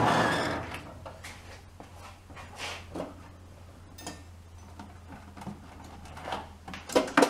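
Front trunk lid of a VW Beetle swinging open with a loud swish at the start, then scattered light knocks and clinks as hands work at the spare tire and its fittings inside the trunk, and two sharp knocks near the end. A faint steady low hum runs underneath.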